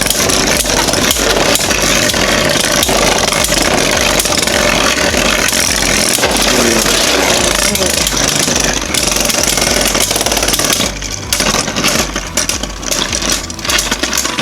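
Two Beyblade spinning tops, a 3D-printed one and a Union Spriggan with metal swords, whirring and grinding in a plastic stadium, with many quick clattering hits as they collide. The sound turns patchy and quieter about eleven seconds in as the tops slow down, ending in a draw.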